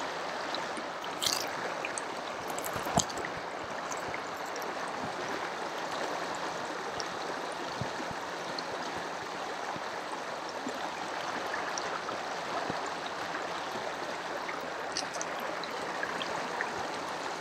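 A stream flowing steadily, a continuous rushing of water, with a few light clicks and taps over it.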